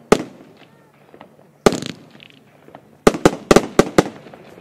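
Evolution Fireworks Coconut Groove 36-shot firework cake firing. Two single bangs about a second and a half apart, then a quick run of about six bangs about three seconds in.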